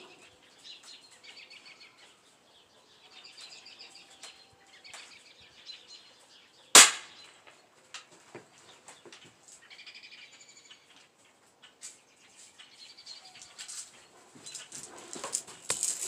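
Small birds chirping in short bursts, with a single sharp gunshot about seven seconds in, much louder than everything else.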